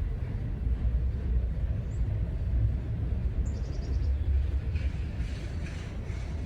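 CSX mixed freight train rolling slowly past, a steady low rumble of the cars on the rails, with a few light clicks near the end.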